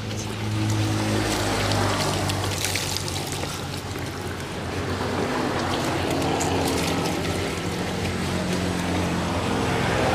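Water poured from a plastic dipper, splashing and trickling over a man being washed and onto the ground. Background music with long held notes plays throughout.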